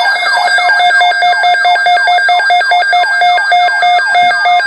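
Electronic alert alarm: a siren-like tone sweeping downward in pitch over and over, several times a second, layered with steady high tones and fast beeping that alternates between two pitches.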